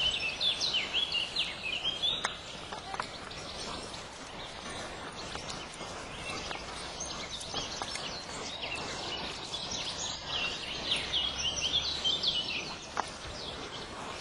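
Birds chirping: many short, quick falling notes, busiest in the first couple of seconds and again near the end.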